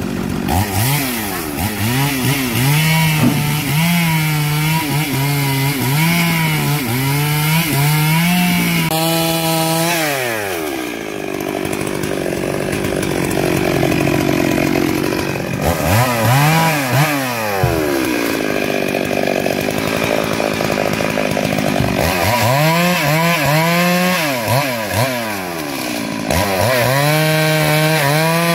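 Stihl MS 382 two-stroke chainsaw cutting logs, revved in repeated bursts with dips in pitch as the chain bites. It drops back to a lower, steadier running pitch twice, about ten and eighteen seconds in, before revving into the wood again.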